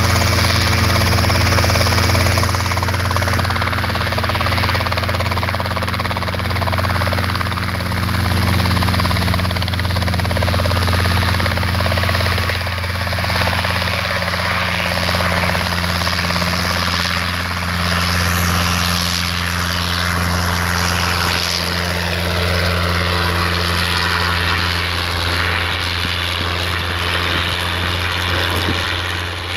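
Light piston-engine helicopter with a two-blade main rotor running close by: a steady, loud rotor and engine drone as it hovers low, then lifts and climbs away.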